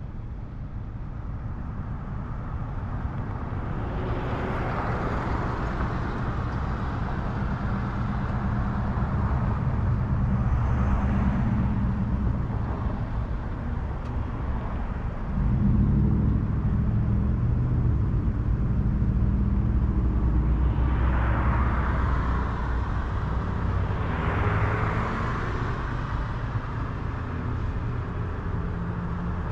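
Road noise heard from the back of a boat being towed on its trailer: a steady low rumble of the towing vehicle and tyres, with a rushing sound that swells up four times, from wind or passing traffic.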